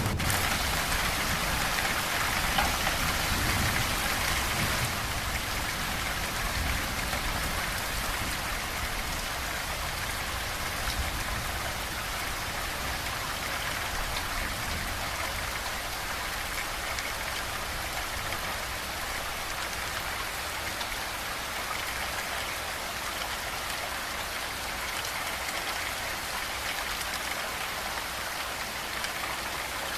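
Steady heavy rain falling, an even hiss of drops on surfaces. A low thunder rumble dies away over the first few seconds.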